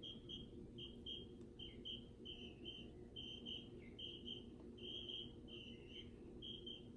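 Faint, short, high-pitched chirps, mostly in quick pairs and repeating regularly about once a second, over a low steady hum.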